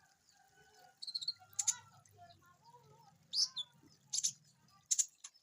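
Konin songbird singing rough, harsh bursts of song: short, sharp calls about once a second, with quieter chattering between them.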